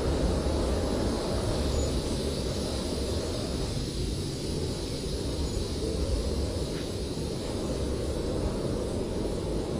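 Blizzard wind blowing steadily, a deep low rush that eases a little around the middle and then builds again.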